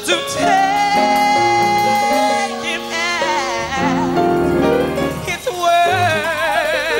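A woman singing a gospel hymn with electronic keyboard accompaniment. She holds a long note about a second in and sings a note with wide vibrato near the end, over sustained keyboard chords.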